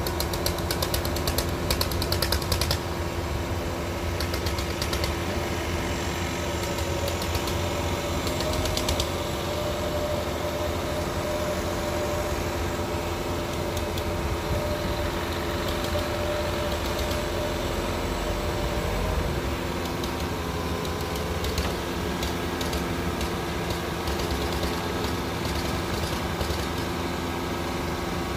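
Large diesel farm-machine engine running steadily, with bursts of rapid metallic clattering in the first few seconds and twice more briefly later.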